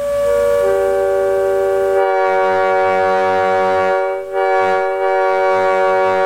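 Leslie SU3B three-chime locomotive air horn blowing a long blast. Its chimes come in one after another in the first second, then the horn dips briefly about four seconds in and sounds again.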